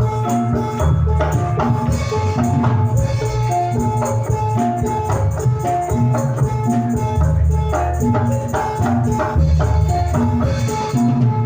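Javanese jathilan gamelan music played loud through a sound system: short ringing metallophone notes repeat in a steady pattern over heavy drum and bass, with jingling percussion on top.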